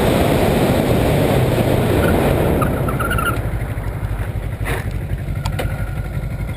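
Wind rushing over a motorcycle rider's camera microphone, with the motorcycle engine running underneath. The wind noise eases off about halfway through, leaving the engine's low rumble and two short clicks.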